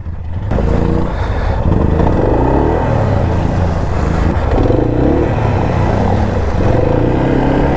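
ATV engine revving hard under load, its pitch wavering up and down, as one quad tugs on a stuck quad. The engine comes in about half a second in. The stuck machine does not come free; the riders reckon it is hung up on a rock.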